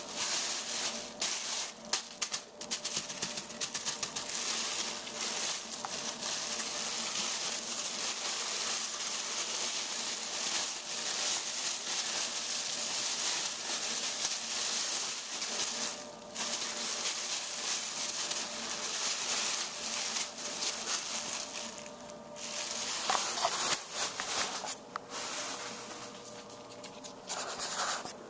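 Thin plastic shopping bag crinkling and rustling almost without a break as a ferret wriggles and burrows about inside it, with a few short pauses.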